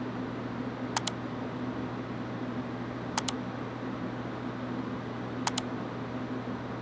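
Computer mouse clicked three times, about two seconds apart, each click a quick press-and-release pair. A steady low hum runs underneath.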